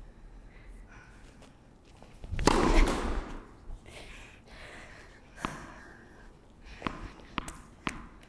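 A tennis ball being bounced on an indoor hard court before a serve: four sharp bounces in the second half, the last three about half a second apart. About two and a half seconds in there is a brief, louder rush of noise.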